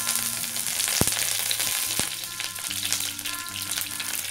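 Curry leaves sizzling in hot coconut oil with mustard seeds and fenugreek. A dense, steady crackle runs throughout, with two sharper pops about one and two seconds in.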